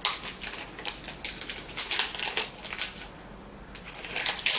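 Silver foil snack wrapper crinkling and tearing as it is peeled open by hand, in a run of crisp rustles with a brief lull and a louder crinkle near the end.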